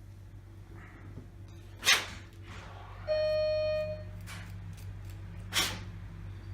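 A dog barking twice, about three and a half seconds apart, with a steady pitched tone lasting about a second between the barks.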